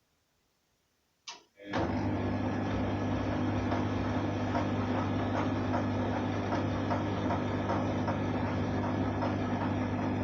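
A click, then a motor starts at once and runs steadily with a low hum.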